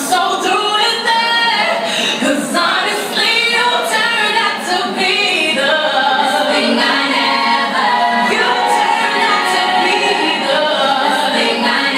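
A song with a female lead voice played loud over a club's sound system, sounding thin with almost no bass.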